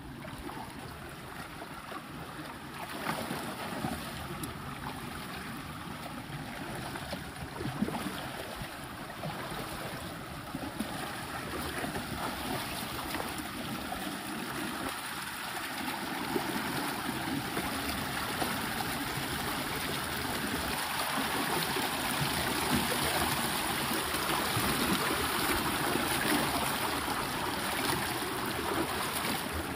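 Rushing water of the North Fork of the Virgin River in the slot canyon, a steady noisy flow that grows louder over the second half.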